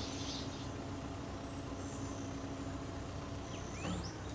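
Farm loader's engine running with a steady low hum, with faint bird chirps above it and two quick rising bird calls near the end.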